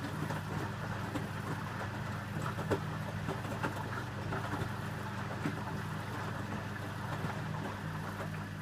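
Electrolux W455H commercial washing machine running its wash: a steady motor hum under a churning, sloshing noise, with a few light knocks from the drum, the sharpest about three seconds in.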